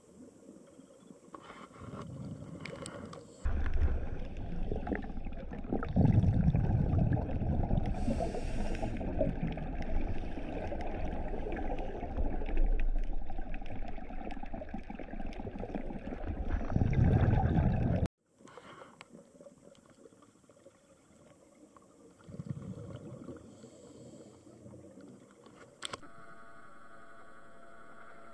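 Underwater sound of a scuba diver's exhaled bubbles rushing and gurgling past the camera housing, in loud swells, which cuts off abruptly about two-thirds of the way through and leaves quieter water noise. A steady hum starts near the end.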